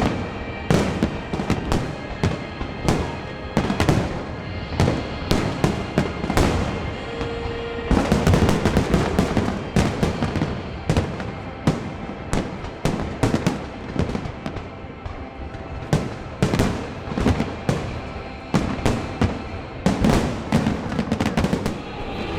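Fireworks bursting in quick succession, many sharp bangs with a dense flurry about eight seconds in, over music playing steadily underneath.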